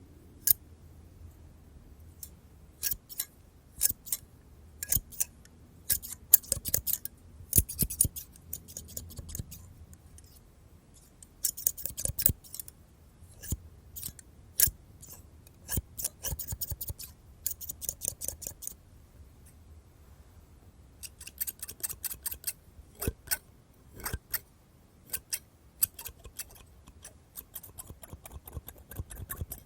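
Scissors snipping close up: crisp single snips and quick runs of several snips in a row, with short pauses between.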